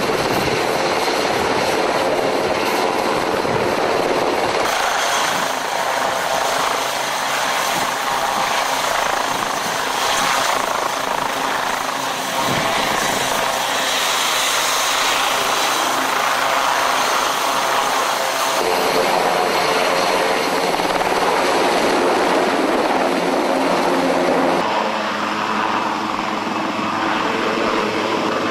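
KUH-1 Surion utility helicopter running, its rotor noise and the whine of its twin turboshaft engines steady and loud. The sound shifts abruptly in character three times, about five, nineteen and twenty-five seconds in.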